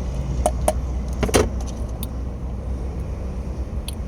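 Low steady rumble of a 2019 Volkswagen Jetta idling, with several sharp clicks and light clanks of parts being handled, the loudest about a second and a half in.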